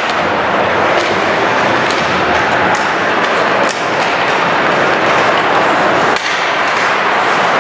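Ice hockey rink during play: a steady rush of noise with scattered sharp clicks of sticks and puck.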